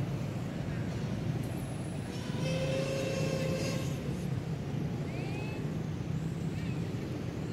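Steady low engine hum of background traffic. About two seconds in, a louder pitched tone rises and holds for over a second, and a couple of short high chirps follow around five seconds in.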